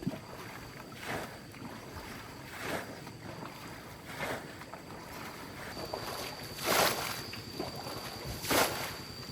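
Water splashing in a slow rhythm, one swish about every one and a half to two seconds; the last two are the loudest.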